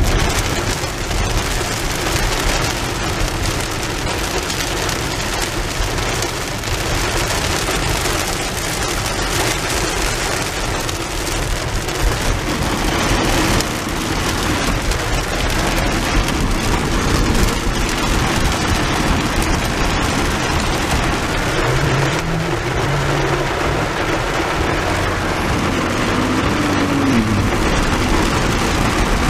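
Heavy rain falling steadily on the car's roof and windows, heard from inside the car.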